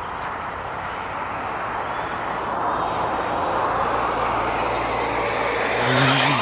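Electric SKYRC SR5 1/4-scale RC motorcycle running flat out on a top-speed run on a 3S battery: a steady whir of motor and tyres that grows louder toward a peak near the end as the bike comes close.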